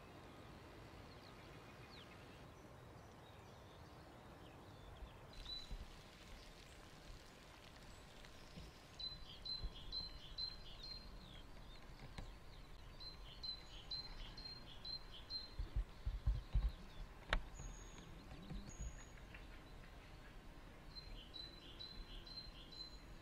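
A songbird singing short phrases of quick repeated high notes, several times over, above faint outdoor background noise. The loudest moment is a brief low rumble about two-thirds of the way through, followed by a single sharp click.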